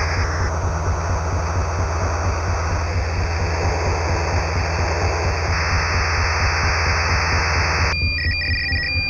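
Shortwave radio noise: a steady hiss over a low hum, its tone shifting in a few steps. About eight seconds in it cuts abruptly to high electronic beeps pulsing on and off.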